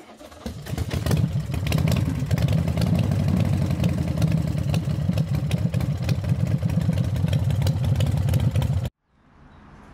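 Motorcycle engine running with a rapid pulsing beat. It builds up over the first second, holds steady, then cuts off suddenly near the end, leaving faint background noise.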